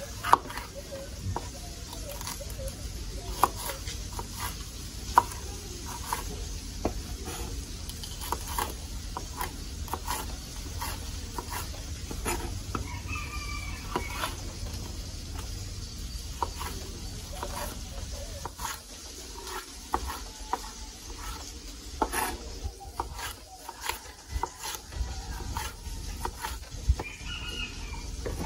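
Chef's knife slicing bell peppers on a wooden cutting board: a run of irregular knocks and taps as the blade meets the board, a few of them sharp and loud in the first seconds. Two short pitched calls sound in the background, around halfway and near the end.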